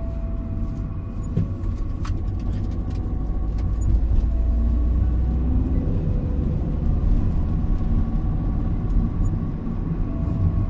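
Steady low rumble of a car driving, engine and road noise blended, with a few faint ticks about two to four seconds in.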